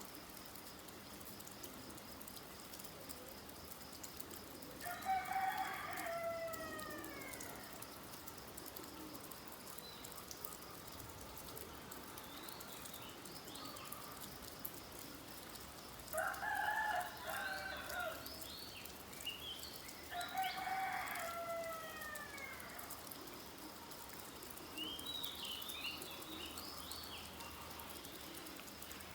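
A rooster crowing three times, each crow about two seconds long with a falling pitch. Between and over the crows, small birds chirp briefly over a steady patter of rain.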